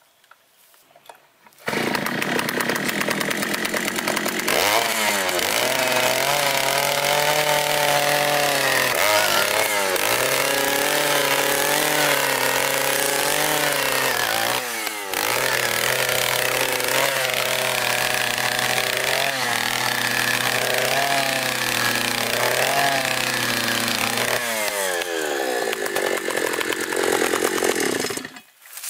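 Oshima 2PS earth auger's 54 cc two-stroke petrol engine running loud as its 100 mm bit drills into hard, stony soil. It comes in about two seconds in and revs up. Its pitch dips and recovers several times as the bit bites, then it winds down and stops near the end.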